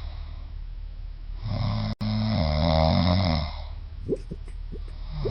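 Dog snoring: quiet breaths, then one loud snore lasting about two seconds, then a few short squeaky whistles near the end.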